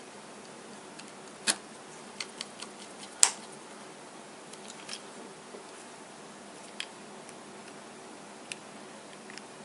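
Small, irregular clicks and taps as fingers and a screwdriver handle an opened Nexus 5 smartphone's plastic frame and internal parts, the sharpest click about three seconds in, over a faint steady hiss.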